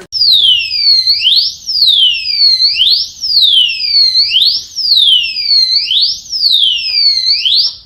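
Armed motorcycle disc lock's built-in alarm going off: a loud, ear-hurting electronic siren whose pitch falls over about a second, then sweeps quickly back up, about five times over, cutting off near the end.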